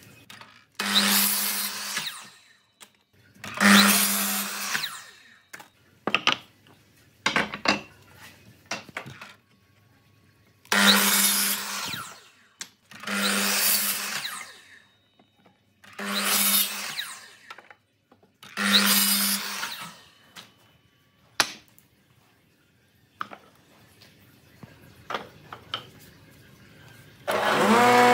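Sliding compound miter saw making six short crosscuts through wood strips: each time the motor whines up and the blade cuts through, with clicks and knocks of the wood being handled between cuts. Near the end a jointer's motor starts up and runs steadily.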